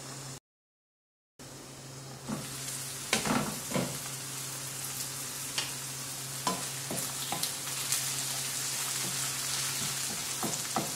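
Diced carrots, onion and green peppers sautéing in olive oil in a ceramic-coated frying pan: a steady sizzle, with a stirring utensil knocking and scraping against the pan. The sound cuts out completely for about a second near the start.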